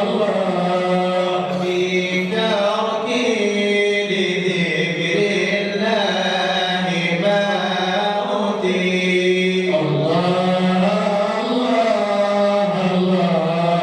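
Islamic devotional madih chanting: a male voice sings an Arabic qasida in long, ornamented, gliding phrases over a steady held low drone.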